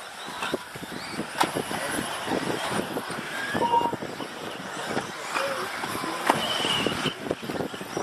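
Radio-controlled model race cars running around a carpet track: a continuous mix of small motors whining and tyres on the carpet, with short knocks and a few brief high-pitched whines as the cars race over the jumps.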